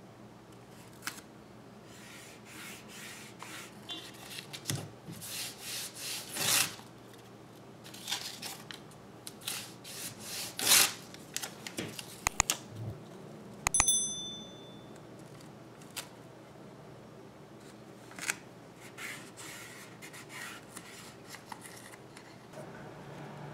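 Masking tape being handled, pulled, torn and rubbed down onto a plastic model surface: a run of short rasps and scrapes. A brief ringing ping sounds once about two-thirds of the way through.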